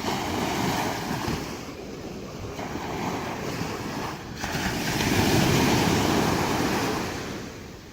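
Ocean waves breaking on the shore: a wash of surf that swells once just after the start and more strongly about halfway through, then ebbs away near the end.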